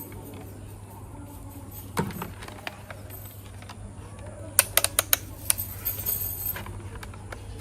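Tools and small metal parts being handled during repair work: a knock about two seconds in, then a quick run of sharp clicks and clinks past the middle, over a steady low hum.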